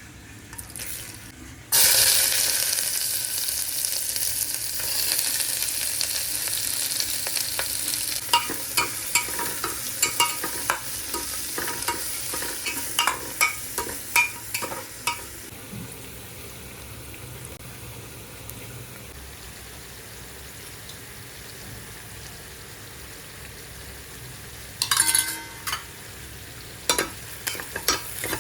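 Food hits hot oil in a pan and starts sizzling loudly about two seconds in, the sizzle slowly dying down. A spoon clicks and scrapes against the pan in runs as the food is stirred.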